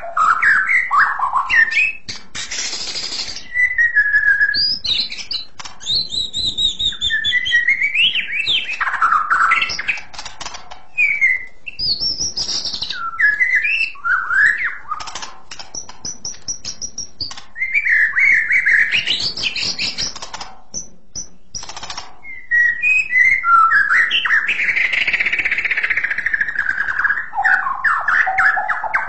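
White-rumped shama (murai batu) singing loud, clear, piercing song: a continuous run of varied whistled phrases with rising and falling glides, broken by short harsh rasps and sharp clicking notes.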